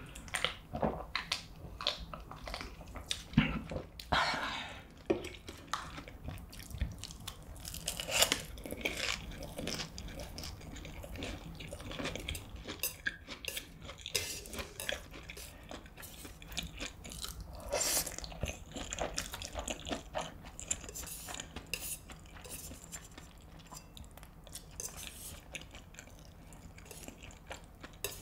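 Close-miked chewing and slurping of saucy cheese stir-fried ramyeon noodles, with wooden chopsticks clicking and scraping on a steel tray. The sound is a string of wet mouth smacks and sharp utensil clicks.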